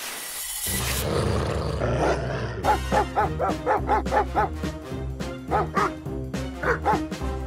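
A cartoon dog-like creature's barks and yelps in quick runs of about four a second over background music, after a whoosh at the start.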